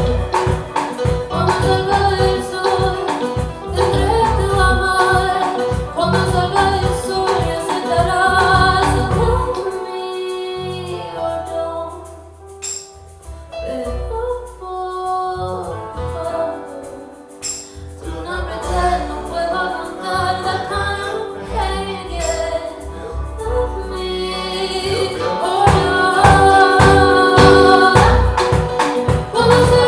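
A woman singing a song with a band of drums and bass behind her. About ten seconds in, the drums drop away for several seconds under long held bass notes, then the full band comes back in.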